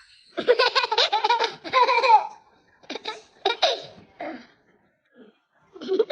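A young child laughing hard in a long run of quick, high-pitched bursts, then a few shorter laughs.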